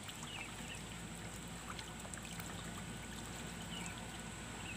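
Faint, steady trickling water, with a few faint high chirps.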